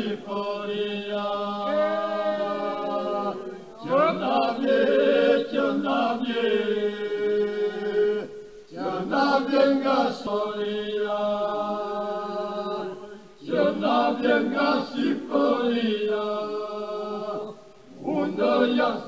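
Background music: a group of voices singing unaccompanied in long held phrases over a steady low drone note, each phrase about four seconds long with a short break between them.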